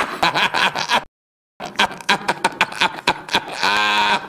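A person laughing hard in quick, rapid pulses. The laughter breaks off into dead silence for about half a second about a second in, resumes, and ends on a drawn-out voiced note.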